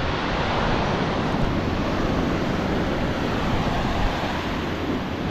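Ocean surf breaking and washing up a flat sandy beach, a steady rushing noise, with wind buffeting the microphone.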